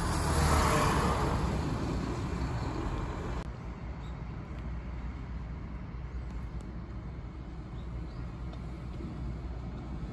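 A road vehicle passing close by on asphalt, loudest about half a second in and fading away over the next few seconds, followed by a steady low traffic rumble.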